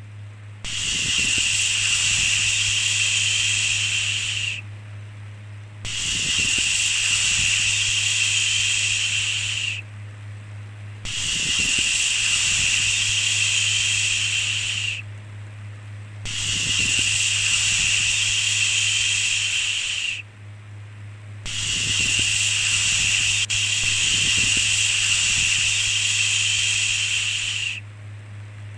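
Repeated shushing 'shhh' sounds, each held for about four seconds with a short pause of about a second between them, five in all, over a steady low hum.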